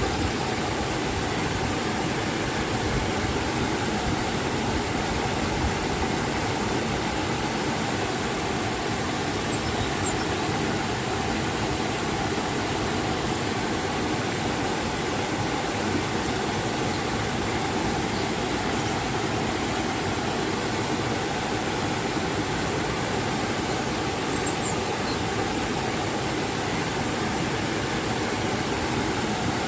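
River and waterfall water rushing steadily, an even, unbroken wash of sound.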